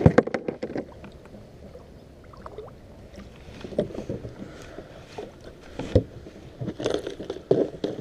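Handling noise aboard a small fishing boat: a quick run of clicks and knocks at the start, then scattered knocks and thumps of gear being moved.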